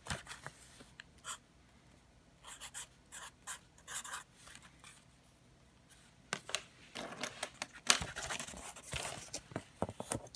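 Felt-tip marker writing numbers on cardboard in a series of short strokes. From about six seconds in come clicks and rustling as the cardboard targets and the calipers are handled.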